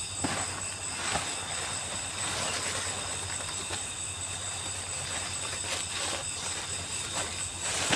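Steady high-pitched chorus of night insects such as crickets, with a few brief crackles or knocks scattered through it.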